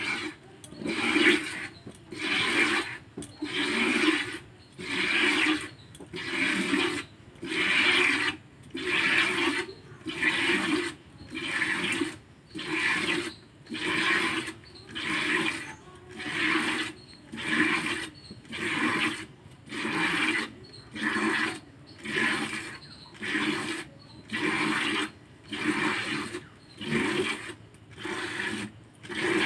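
Milk squirting from a cow's teats into a plastic bucket during hand milking, one hissing spurt about every second in a steady, even rhythm.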